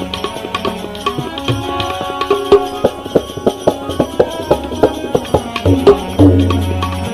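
Instrumental interlude of a Gujarati devotional bhajan: drum strokes at a quick steady beat, about three a second, over held instrument tones, without singing.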